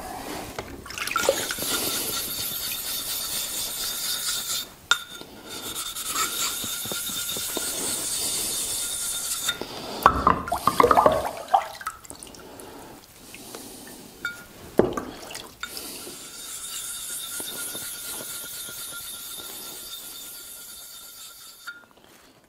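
Steady rush of water in three spells of a few seconds each, with knocks and clatter of handled objects in between, as Japanese waterstones are cleaned over a bucket.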